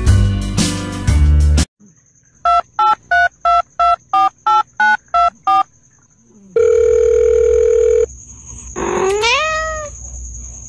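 Upbeat music cuts off, then about ten telephone keypad dialing tones in quick succession, followed by a steady phone tone for about a second and a half. Near the end, a cat gives a short rising meow.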